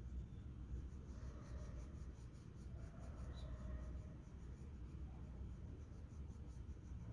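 Coloured pencil scratching on paper in quick back-and-forth shading strokes, a steady even rhythm.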